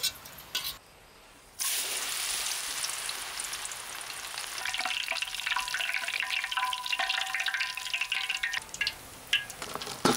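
Chopped aromatics deep-frying in a wok of hot oil: a steady sizzle that grows denser and crackly in the middle as a wire skimmer stirs and scoops through the oil, with a few sharp knocks near the end.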